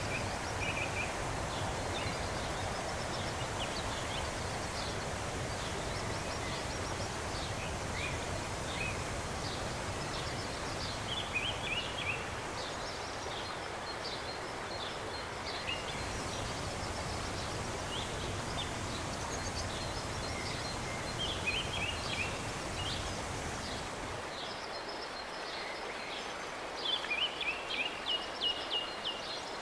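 Steady rushing of river water, with a songbird repeating short phrases of quick high chirps every several seconds. The bird is loudest near the end.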